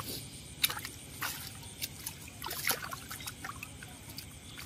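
Water dripping and splashing off a wet cast net as fish are pulled and shaken out of the mesh onto a plastic tarp, with a few short sharp slaps and rustles.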